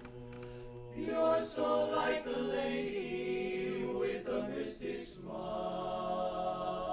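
Men's barbershop chorus singing a cappella in close four-part harmony. A quiet held chord gives way to a louder phrase about a second in, and a new chord is sustained from about five seconds in.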